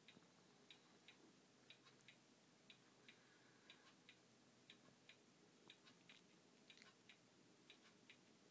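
Near silence with faint, regular clock ticking, two ticks a second in an uneven tick-tock rhythm.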